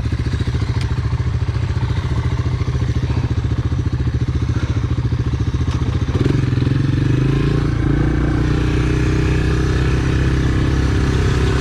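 Honda Big Red ATV engine running at idle with even firing pulses, then the revs rise about halfway through and it settles into a steady, higher run.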